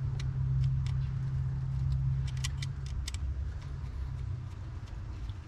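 Light metallic clicks and taps from screwing wires to the terminals of a switch and outlet in a weather box, over a steady low motor hum.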